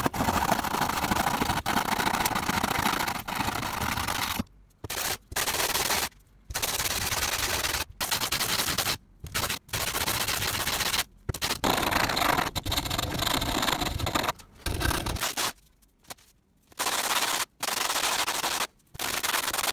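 Handsaw cutting a wooden handle block, then the block rubbed back and forth by hand on sandpaper on a workbench: fast rasping strokes in short stretches, broken again and again by sudden drops to near silence.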